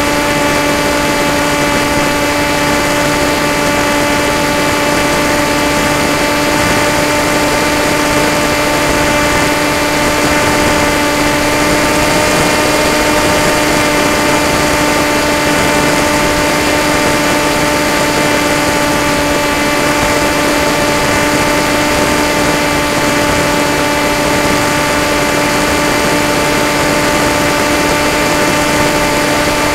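Electric motor and propeller of an FPV model aircraft running at a steady cruise pitch, with wind rush, as heard from the aircraft's onboard camera.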